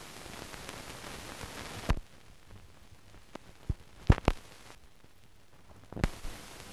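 Hiss of a silent film's blank soundtrack, with several sharp clicks and pops at the splices between shots. The hiss drops lower about two seconds in and comes back about six seconds in.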